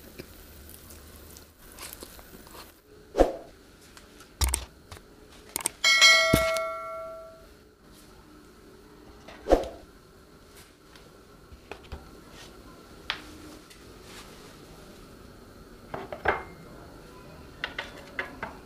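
Dishes and cutlery being set down on a table: scattered knocks and clinks, one clink about six seconds in ringing on like a small bell for over a second, and light clicks near the end as a fork is laid down.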